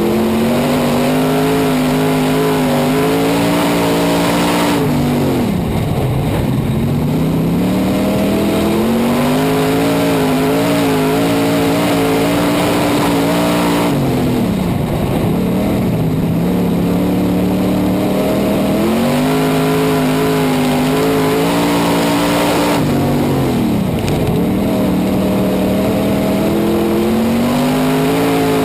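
Super stock dirt race car's V8 engine at racing speed, heard from inside the cockpit. The revs drop three times, about every nine seconds, as the driver lifts for the corners, then climb back as the car powers onto the straights.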